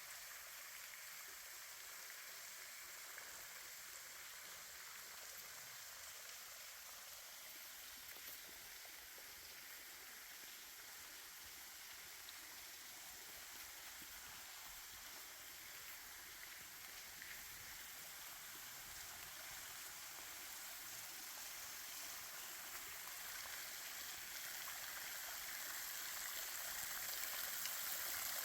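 Steady hiss of running creek water, growing gradually louder over the last several seconds.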